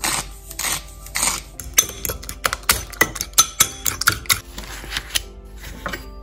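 Metal fork beating eggs in a ceramic bowl: a quick run of light clinks of the fork against the bowl for a couple of seconds, starting about two seconds in.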